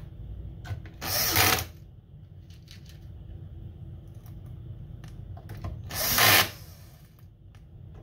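Cordless drill/driver running in two short bursts, each about half a second, driving small black screws back into an Xbox Series X chassis.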